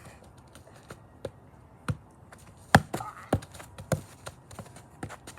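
A ball bouncing on a hard surface: a short run of sharp knocks about two-thirds of a second apart, starting about two seconds in.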